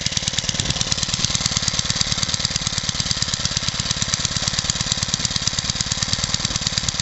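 Small BSA stationary engine running steadily with a rapid, even beat.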